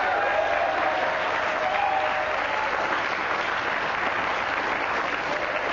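Studio audience applauding steadily, welcoming a guest who has just been announced.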